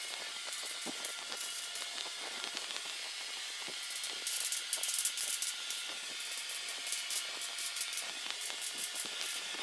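Gravity-feed paint spray gun hissing in short bursts as base coat is sprayed onto a steel truck grille, with a longer, louder burst about four to five seconds in.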